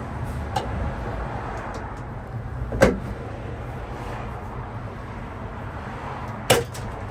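Two sharp knocks, about four seconds apart, and a faint click, from hand tools and lock parts being worked on a pickup truck's ignition lock, over a steady low background rumble.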